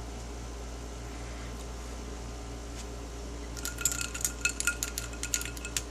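Ice cubes clinking against a glass tumbler of ice water: a quick, irregular run of bright clinks starting about three and a half seconds in, over a steady low hum.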